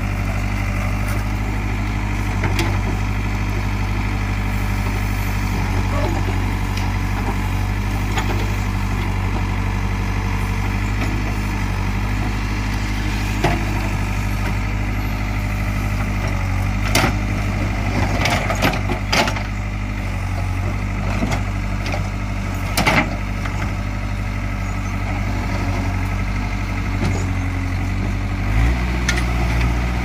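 JCB 3DX backhoe loader's diesel engine running steadily under load while the backhoe digs, with a scatter of sharp knocks and scrapes from the bucket working the earth in the second half. Near the end the engine note shifts as the revs change.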